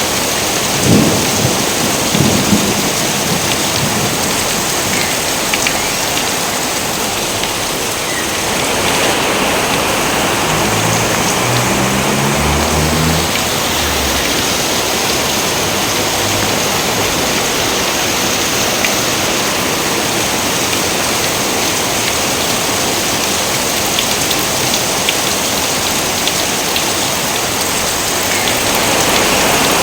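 Steady heavy rain, with a roll of thunder rumbling away in the first few seconds.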